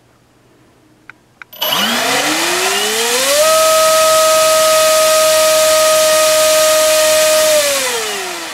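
NTM PropDrive EF-1 3842 1300kV brushless motor turning a 7x8 APC gas prop on a 5-cell LiPo: after two small clicks it spins up with a rising whine about a second and a half in, holds steady at full throttle for about four seconds, then spins down near the end.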